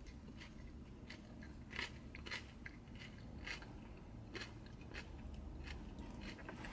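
Close chewing and crunching of salad, with short clicks and scrapes of a plastic fork in a paper bowl.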